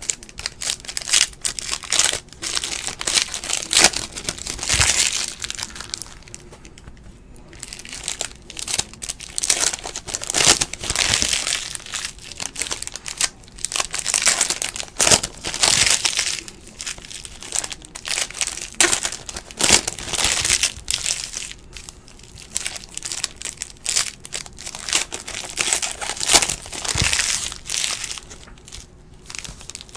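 Foil trading-card pack wrappers crinkling and tearing as packs of 2016-17 Panini Excalibur basketball cards are ripped open by hand. The cards are also being handled. The sound is an irregular run of crackles, swelling and fading every second or two.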